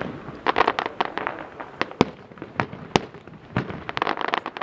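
Fireworks display: aerial shells bursting in a string of sharp bangs, with dense clusters of quick pops about half a second in and again near the end.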